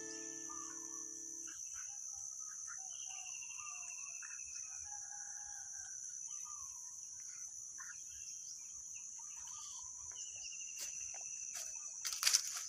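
Steady high-pitched insect drone, cricket or cicada, with birds chirping and calling over it, including two quick falling trills. Background music fades out in the first second and a half. A brief loud rustle near the end.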